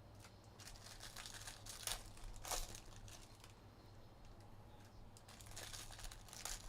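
Trading card pack wrappers and cards being handled, crinkling and rustling quietly, with a few short, louder crinkles about two seconds in and again near the end.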